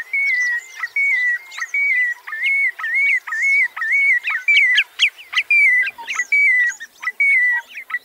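Marsh sandpiper calling: a steady series of short whistled notes, level in pitch, about three every two seconds. Sharp upward-sweeping notes are mixed in around the middle.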